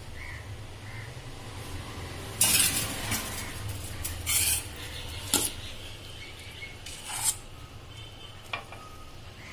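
A metal spoon scraping and knocking against a hot appe pan in a few short, loud bursts, with brief sizzling from the oiled pan and one sharp clink about five seconds in.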